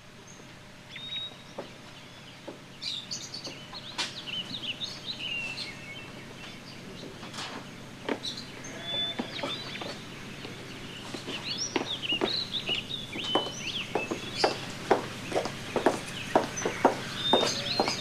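Farmyard ambience: small birds chirping and chickens clucking over a steady low hum. In the second half, a run of short sharp sounds comes at about two a second and grows louder.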